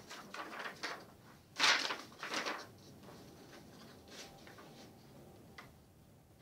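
Sheets of paper rustling and flapping as they are handled, in a few short bursts, the loudest about one and a half seconds in, then only faint room noise with a couple of small clicks.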